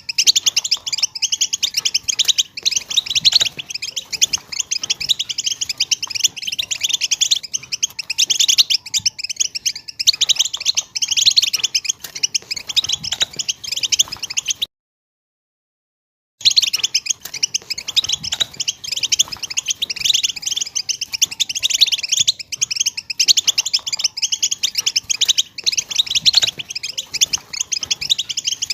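European goldfinch singing a fast, continuous twittering song of high chirps and trills. The song cuts out into complete silence for under two seconds about halfway through, then resumes.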